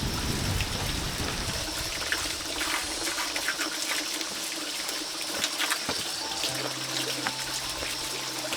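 Water trickling and dripping, with many small scattered clicks.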